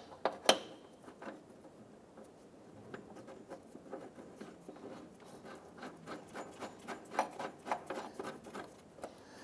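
Hood latch hardware being handled and fitted: two sharp clicks right at the start, then light scraping and small irregular clicks as the latch is seated in the fender holes and the nut and washer are started on its stud. The clicking thickens about six seconds in.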